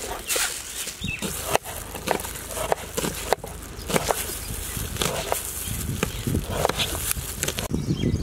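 Kitchen knife chopping green chillies on a plastic cutting board: sharp irregular taps, roughly two a second.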